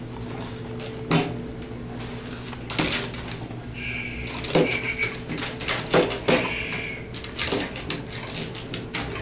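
Sharp knocks and clacks, about six of them, from gloved hands combing and holding a struggling toy poodle on a grooming table. Two short high squeaks come near the middle, over a steady low hum.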